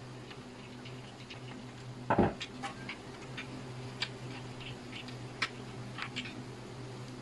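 Small plastic clicks and taps from handling the parts of a Ubiquiti LiteBeam 5AC Gen2 dish antenna during assembly, with one louder knock about two seconds in. A steady low hum runs underneath.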